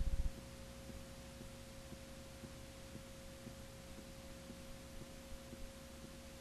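A steady, single mid-pitched electronic tone over tape hiss and a faint low hum, on a blank stretch of videotape. A louder low buzz cuts out just after the start.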